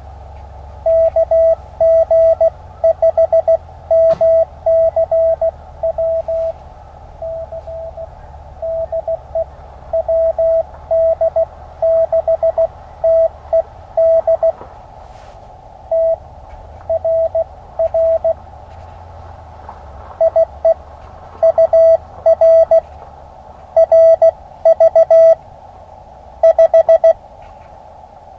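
Morse code (CW) from an Elecraft KX2 ham radio transceiver: a single steady mid-pitched beep keyed into dots and dashes in short groups with pauses between, over a constant hiss of filtered band noise.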